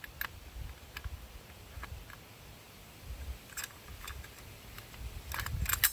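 Metal clicks and clacks of an Anderson AM-15 (AR-15-type) rifle being put back together by hand after field-stripping, as its parts are worked back into the receiver. The clicks are scattered, with a quick cluster near the end.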